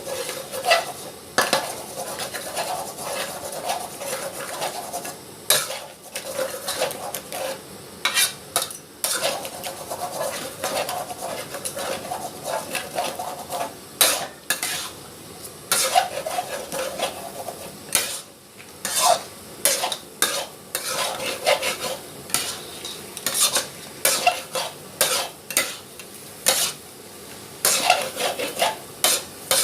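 Eggs sizzling in hot oil in a pan while a spatula stirs them, scraping and knocking against the pan many times at an irregular pace.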